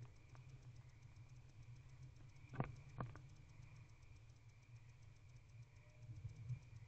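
Near silence: the steady low hum of the nest-box camera's microphone, broken by two faint clicks about two and a half seconds in, a moment apart, from the barn owl moving in the box.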